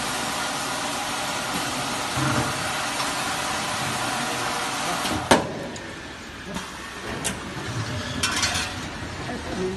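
Jug washing and filling machine running with a steady hiss. About five seconds in there is a sharp clunk, after which it goes quieter, with short hisses and clicks.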